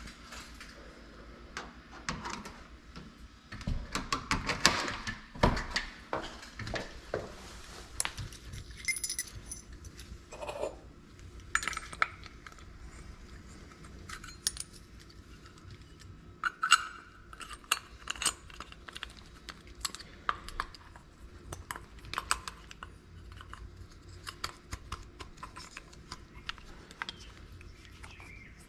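Small metal clicks, ticks and jingles of keys and lock parts being handled, irregular throughout, as a door lock is rekeyed; a cluster of louder knocks a few seconds in.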